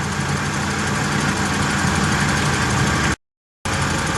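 Mazda 626 engine idling steadily, a low even hum; the sound cuts out completely for about half a second around three seconds in.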